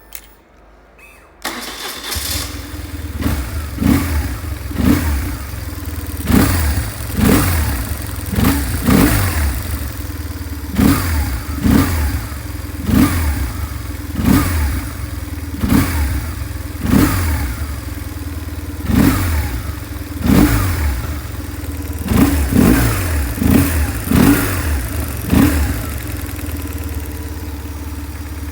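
BMW R1150R's air-cooled boxer twin on its stock exhaust starting about a second and a half in, then idling with short throttle blips roughly once a second, some in quick pairs.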